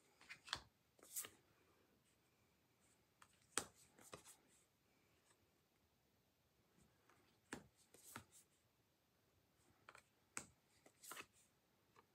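Tarot cards being handled one at a time, in four short clusters of light taps and card-on-card slides about every three to four seconds, with quiet between.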